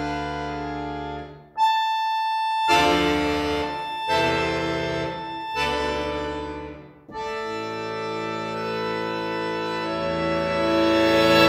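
Button accordion playing sustained chords: a chord dies away, a single high note sounds, three separate chords follow with short breaks between them, and after a brief pause a long final chord is held, swelling louder toward the end before it is released.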